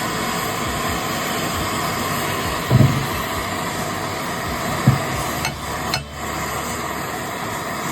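Two dull hammer blows about two seconds apart, driving a steel drift bar against a stuck shaft coupler to break it free, over a steady hiss.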